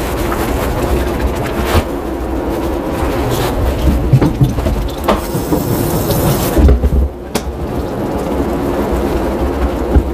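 Water from a hose spray nozzle running and splashing in a tiled grooming tub while a wet, soapy dog is scrubbed and rinsed by hand, with a few short knocks.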